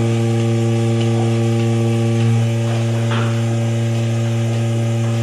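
Goat milking machine's vacuum pump motor running, a loud steady low hum with a ladder of overtones.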